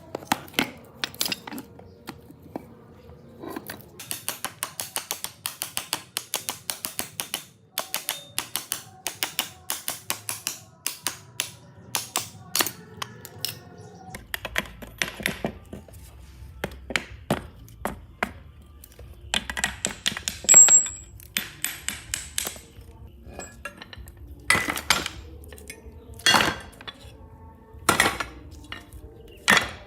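Metal tools and steel machine parts clinking and knocking against each other: a run of quick regular taps, about four a second, then scattered louder knocks, some of them ringing.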